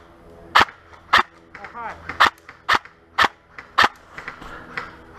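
Airsoft rifle firing single shots, about eight sharp snaps roughly half a second apart.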